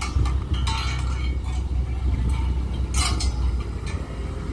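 Backhoe's diesel engine running steadily under the clink of the chains and steel frame of a sleeper-laying attachment knocking against concrete railway sleepers. Sharp metal clinks come about a second in and a louder pair about three seconds in.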